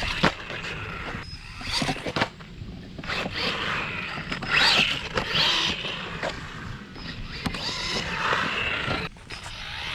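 Small electric RC truck being driven: its brushless motor whines up and down with the throttle over a rattling, scraping running noise.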